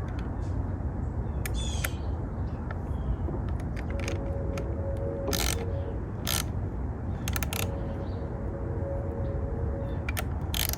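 Hand tools at work on metal: a ratchet wrench clicking in two runs in the middle, with scattered sharp clinks and knocks of metal tools. A steady low rumble runs underneath.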